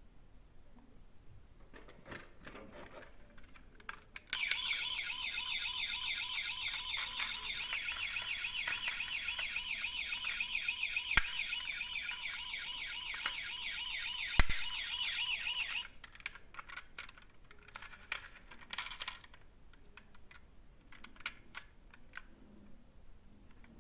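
A toy emergency vehicle's electronic siren starts about four seconds in and sounds for about eleven seconds, with a wavering tone. Two sharp clicks cut through it, and light clicks and taps come before and after.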